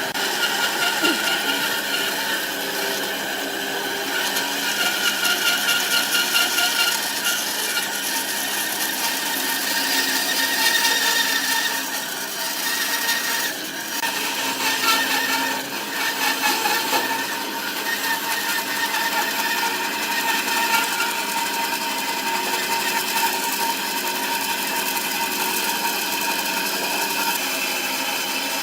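Wood lathe running while a turning tool cuts into the spinning wood: a continuous scraping, whirring sound whose loudness rises and eases as the cut goes on.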